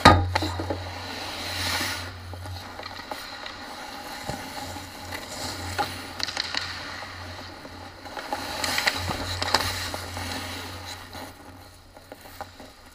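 Ice hockey play heard from inside the goal: skates scraping and carving the ice, with sticks and puck clacking. There is a sharp, loud hit at the very start, and two longer swells of skate scraping, one about two seconds in and one around nine seconds. A low steady hum runs underneath.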